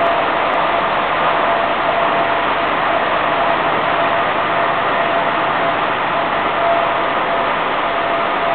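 A 1000 mm BD-type vibrating filter running while it screens ceramic slurry: a steady mechanical rush with a faint steady whine.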